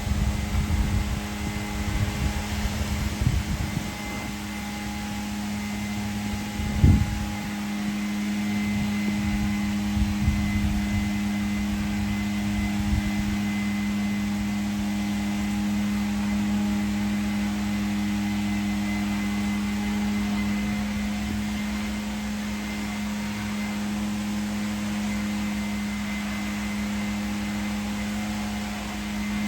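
A steady, low mechanical hum, like a fan or small motor running, holding one pitch throughout. Uneven low rumbling comes and goes over the first dozen seconds, with a single sharp thump about seven seconds in.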